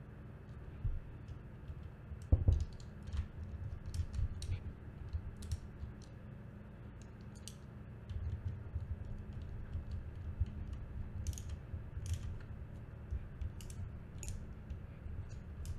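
Small clicks and rustles of wires being fitted to a plastic contactor and a push-button block by hand, with low bumps against the work surface and one louder knock a little over two seconds in.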